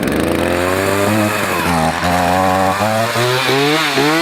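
Small two-stroke chainsaw running just after a first pull-start from cold, its engine speed stepping up and down unevenly, then revved up and down a few times near the end.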